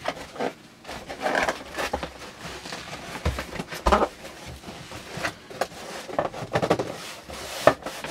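Cardboard box and packaging being opened and handled: irregular rustling, scraping and tapping, with two low thumps about three to four seconds in and a sharp click near the end.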